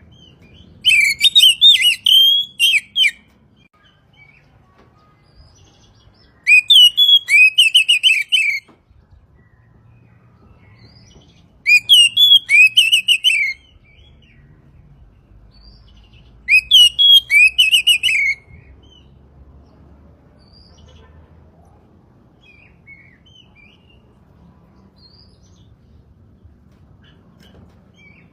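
Oriental magpie-robin (kacer) singing: four loud phrases of rapid, sweeping notes, each about two seconds long and a few seconds apart.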